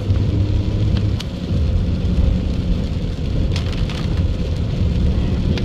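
Heavy rain falling on a moving car's roof and windshield, heard from inside the cabin over the steady low running of the engine and the tyres on the wet road, with a few sharp ticks.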